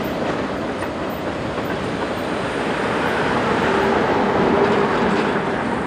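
Freight cars of a short train rolling past, their wheels rumbling steadily on the rails and growing a little louder midway through.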